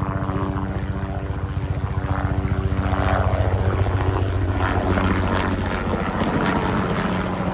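Vehicle engine droning steadily, heard from inside the cab while driving, with road and wind noise building after a few seconds.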